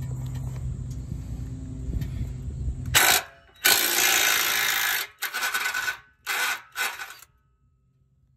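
Ryobi cordless impact hammering on a 15 mm exhaust flange bolt to loosen it, in bursts from about three seconds in: a short burst, a long one of over a second, then three short ones, stopping about seven seconds in. Before the bursts there is a steady low hum.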